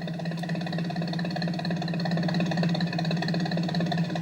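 Van engine running steadily: a low, even hum with a fast pulsing.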